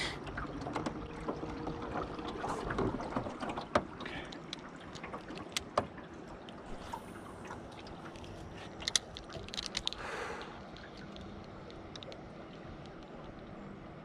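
Fishing from a small boat: scattered sharp clicks and knocks from the spinning reel and the boat, over a faint steady hum, with a short rustling stretch near the middle.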